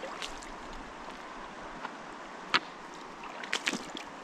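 Shallow river running steadily over rocks, with sloshing and a few sharp splashes of someone wading through it: the loudest about two and a half seconds in, then a quick cluster near the end.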